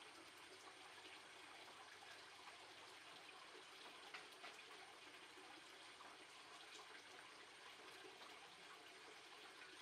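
Near silence: a faint, steady hiss with a few soft clicks, the loudest about four seconds in.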